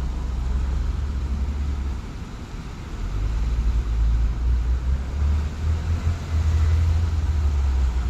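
Low rumble of road traffic, with a brief lull about two seconds in before it swells again.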